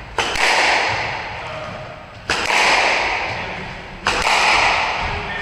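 Squash ball cracking off a racket and the court walls: three sharp hits about two seconds apart, each trailing off in a long echo around the enclosed court.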